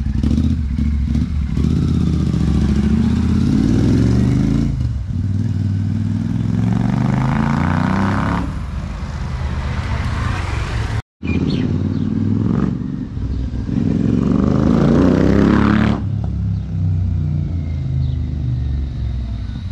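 Royal Enfield Super Meteor 650 parallel-twin engine through a Rhino Racing aftermarket exhaust, revving up several times as the motorcycle accelerates away. The note breaks off briefly about eleven seconds in and is quieter over the last few seconds.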